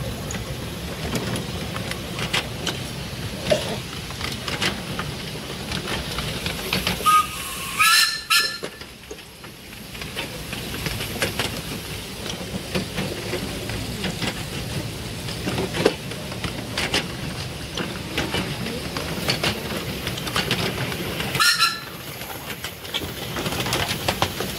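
Miniature steam railway train running, its wheels clicking over the rail joints. A steam whistle sounds about eight seconds in, rising in pitch as it opens, and gives a shorter blast again about 21 seconds in.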